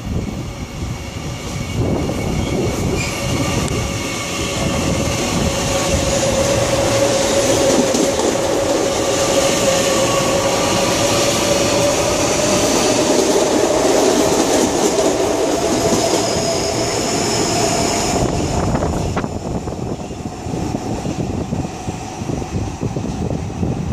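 New CPTM Line 7 electric multiple-unit commuter train passing close along the platform: loud rolling wheels on rail with a steady whine that slowly rises a little in pitch. After about eighteen seconds it fades as the train runs away down the line.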